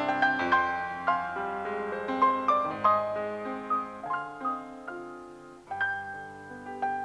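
Background piano music: a gentle melody of struck notes over changing chords.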